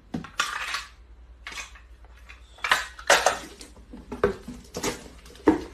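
Packing tape pulled off a handheld tape dispenser onto cardboard boxes, with the boxes handled, in a series of short rasping bursts.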